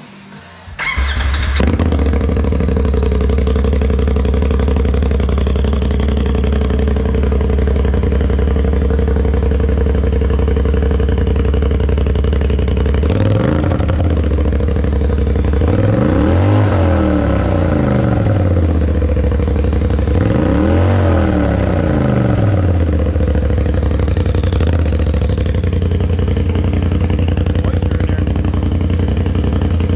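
Polaris RZR Turbo's turbocharged twin-cylinder engine starting on its first run through a freshly fitted RPM header-back exhaust: a brief crank about a second in, then the engine catches and idles loud and steady. Three blips of the throttle follow, a short one and then two longer revs that rise and fall, each with a low bark from the aftermarket exhaust.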